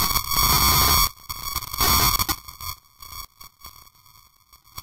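Car collision heard through a dashcam: a loud, noisy crash lasting about a second, a second loud burst just after as the knocked-loose camera tumbles, then a few smaller knocks. A steady high electronic tone runs underneath.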